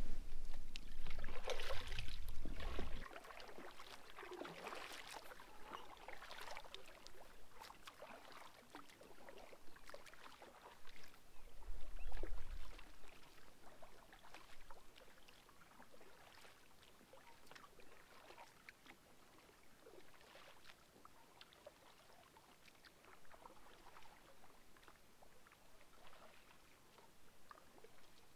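Kayak paddle dipping and water splashing and dripping, busiest over the first few seconds and then thinning to scattered faint drips. A low rumble runs through the first three seconds and comes again about twelve seconds in.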